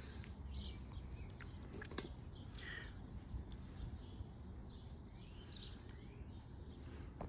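Faint outdoor background with small birds chirping now and then, and a few light clicks.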